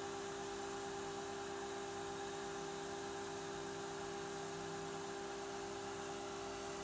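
IBM System x server's cooling fans running steadily while the server goes through its firmware boot: a constant hum with several fixed tones over an even hiss.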